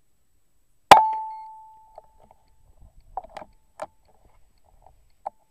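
A single air rifle shot about a second in: a sharp crack followed by a ringing tone that fades over about a second. A few small clicks and knocks follow.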